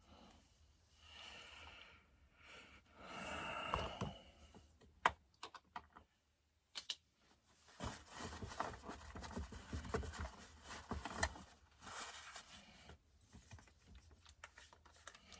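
Faint clicks, light knocks and rattles of small metal parts and hand tools being handled while a chainsaw is taken apart, with a few soft hissy rustles in the first few seconds and a busier run of clicking from about halfway in.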